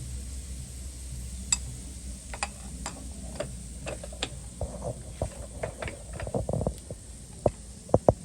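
Light clicks and knocks at uneven intervals over a low steady hum, becoming more frequent and louder near the end.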